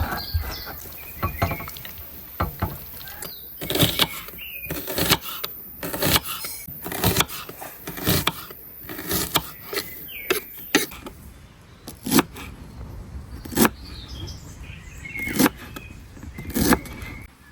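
Irregular sharp knocks and clicks, some in quick runs and some a second or more apart, with birds chirping faintly.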